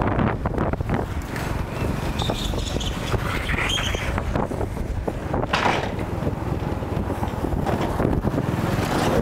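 Wind buffeting the microphone with steady road and traffic noise, recorded from a moving bike; a short higher-pitched tone rises and falls about three to four seconds in.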